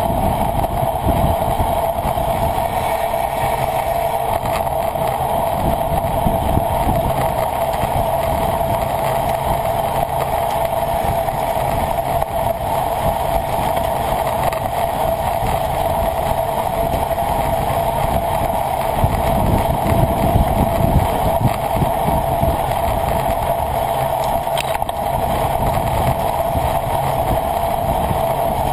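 Steady wind rush and road noise on a camera riding with a bicycle at racing speed. It is a constant hiss-like rush with a hum-like band in the middle and gusty buffeting rumble underneath.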